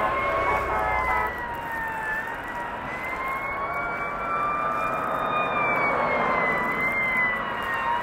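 Fire apparatus siren wailing as the engine and truck approach, its pitch slowly rising and falling.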